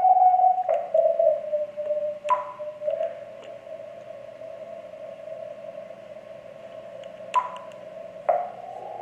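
Icom IC-7000 receiver audio on the 20 m CW band: a steady Morse-signal tone for under a second, then band hiss squeezed through a narrow CW filter into a hollow ringing band of noise, which opens up again near the end as the filter is widened. A few short clicks come as the filter is switched.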